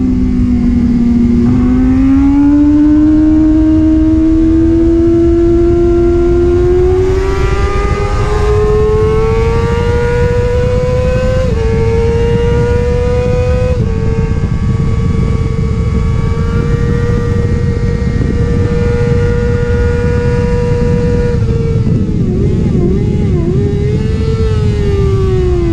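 Sport bike engine heard from on board at speed on a track, its pitch climbing steadily for about ten seconds, then held at high revs, with a few quick rises and dips about 22 seconds in before the revs fall near the end. Heavy wind rush on the microphone runs underneath.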